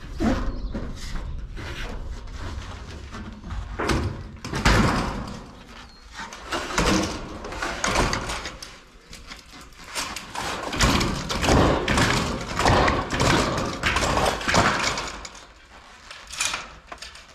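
Pro Rib metal roofing panel being slid and shifted into place over asphalt shingles: sheet metal scraping and rattling in uneven bursts, loudest a few seconds in and again through the second half.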